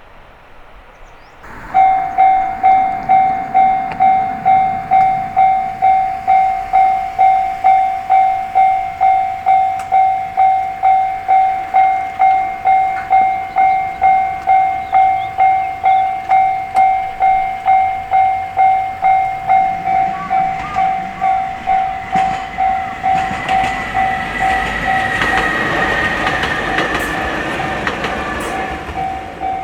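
Railway level-crossing alarm bell starts up about two seconds in, ringing in a steady beat of about two strikes a second. Near the end a train approaches and passes, growing louder, with a tone that slowly falls in pitch over the crossing bell.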